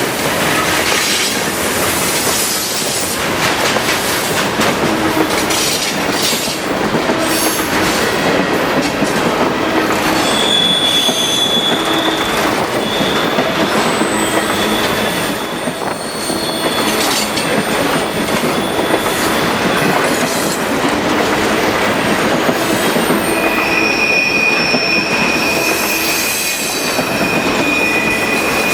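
CSX freight train cars rolling past close by, steel wheels clattering on the rails in a loud steady rumble. Thin, high-pitched wheel squeals come and go over it, the first about ten seconds in and a longer one from about twenty-three seconds in.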